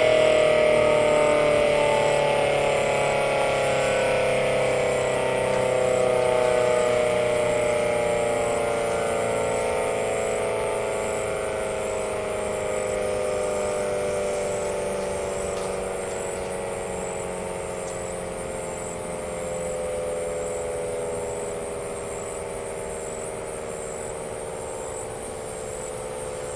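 Federal Signal Model 7AT outdoor warning siren winding down after shut-off: its chord of tones glides slowly and steadily lower in pitch while it fades, swelling and easing back about every seven seconds.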